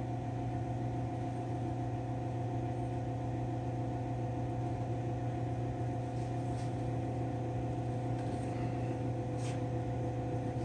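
A steady motor hum with several fixed tones, and two faint clicks in the second half.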